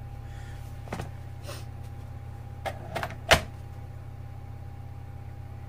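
DeWalt FlexVolt 54 V battery slid onto its plastic fast charger: a few light knocks, then a sharp latch click a little over three seconds in as it seats. A steady low hum runs underneath.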